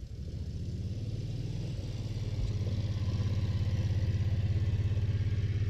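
Yanmar tractor's diesel engine running with a steady, even throb. It grows louder over the first few seconds, then holds.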